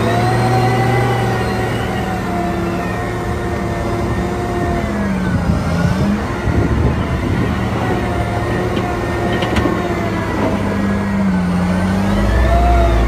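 Caterpillar 990 wheel loader's diesel engine working hard under load as it raises a full bucket, its pitch dipping and rising again twice, about five seconds in and near the end.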